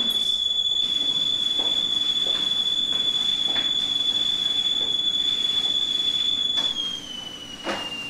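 A steady high-pitched whistling tone that holds level, then about a second before the end slides down in pitch and drops away, over soft footsteps.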